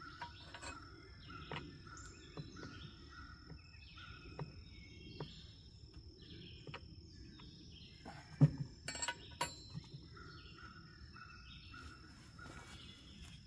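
Quiet outdoor background with birds chirping in short repeated notes over a steady high insect-like tone. Scattered sharp clicks and knocks, the loudest about eight and a half seconds in, followed by a few smaller ones.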